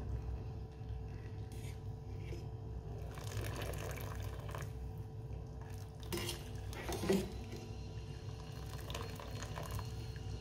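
Parboiled rice being scooped out of a pot of hot water with a steel wire skimmer into a plastic mesh strainer: water draining and dripping back into the pot, with a few knocks of the skimmer against the metal pot, the loudest about seven seconds in. A steady low hum runs underneath.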